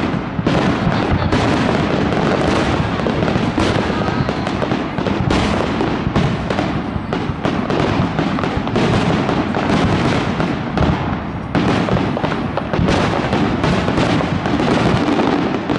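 Aerial fireworks shells bursting in rapid succession: a dense, continuous barrage of bangs with many bursts overlapping.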